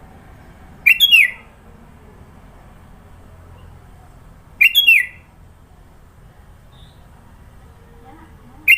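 Sooty-headed bulbul (kutilang) giving a short, sharp call three times, about four seconds apart.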